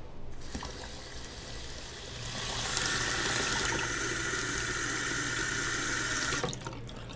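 Water running from a tap into a sink. It starts just after the beginning, gets fuller about two seconds in, and is shut off sharply shortly before the end.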